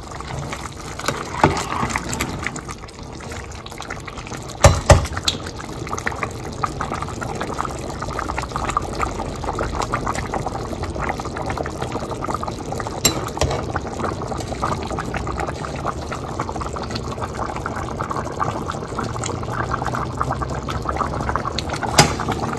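Beef broth boiling hard with rice in a wide pan, bubbling and crackling as the rice cooks and soaks up the broth. A few sharp knocks cut in, the loudest a pair about five seconds in.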